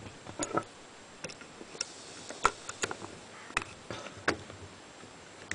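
Irregular light clicks and taps, about a dozen, as the trigger group of a side-by-side shotgun is handled and fitted back into the action.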